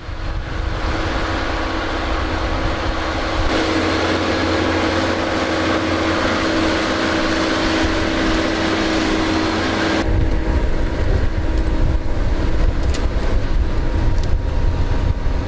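Tractor engine running under load as it pulls a Rome TRCW24 offset disc harrow through a field, a heavy rumble with a steady droning tone. The sound changes abruptly twice, about three and a half and ten seconds in.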